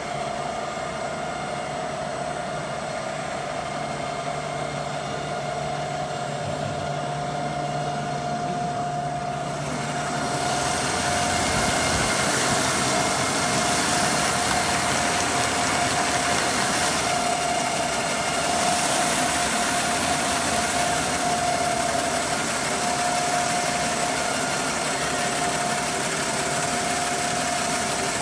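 CNC wood sanding and brushing machine running, its motors giving a steady hum with a thin whine. About ten seconds in a loud hiss comes in and holds as it works.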